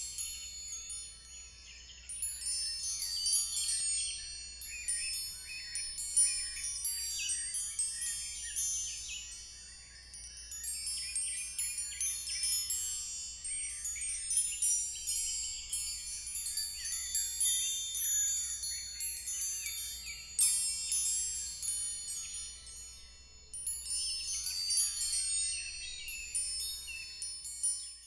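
Woodstock Crystal Chime Emerald wind chime: its metal tubes struck by a faceted green glass crystal clapper, ringing in clusters of bright, high overlapping tones. The ringing eases off twice, about a third of the way through and again near the end, before picking up again.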